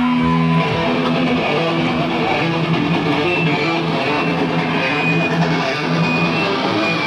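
Live rock band music: electric guitar playing a song's opening with held, ringing chords over a steady low note.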